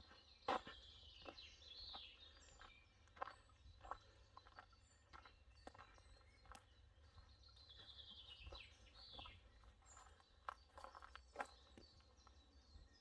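Quiet outdoor ambience: faint birds singing in short falling warbles, twice, with scattered soft footsteps.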